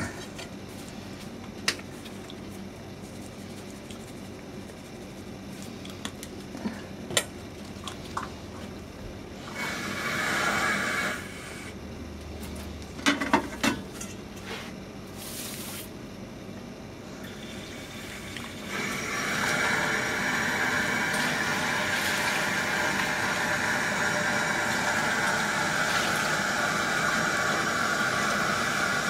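Kitchen tap running steadily into a rice cooker's inner pot, filling it with water for the rice, from about two-thirds of the way in. Before that, scattered clicks and knocks of handling and a brief rush of sound about ten seconds in.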